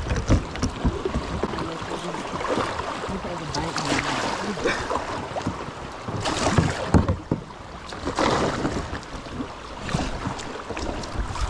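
Kayak hull scraping and knocking over algae-covered rocks in a shallow creek, with rushing water. The irregular bumps and scrapes come throughout, some louder than others.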